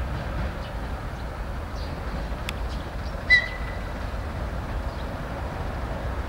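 Distant diesel locomotives with a train running at low speed, a steady low rumble. About three seconds in, a brief high-pitched tone rises above it.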